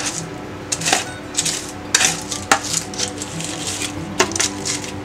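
Spatula scraping roasted greens out of a foil-lined baking tray, with a series of short sharp scrapes and crinkles of the aluminium foil as the tray is tipped onto a plate.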